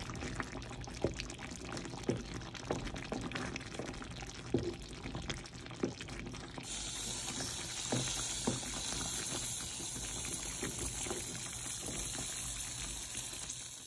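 Thick coconut-milk stew bubbling in a pan, with irregular soft pops and blips. About halfway through a steady high hiss joins in.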